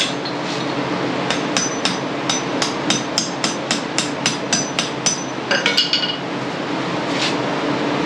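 Hammer striking metal on an ATV's rear axle assembly: a quick run of about sixteen sharp, ringing blows at roughly four a second, then a few brighter clanks and a last single strike.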